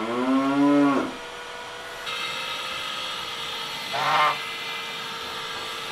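A long, drawn-out animal call that rises in pitch and ends about a second in, then a short honk from a white domestic goose about four seconds in, over a faint steady hum.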